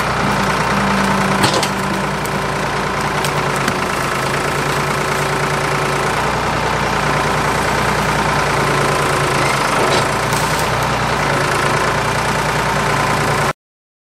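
Ford 555 backhoe's engine running steadily while the boom and thumb work, with a few sharp knocks over it. The sound cuts off suddenly near the end.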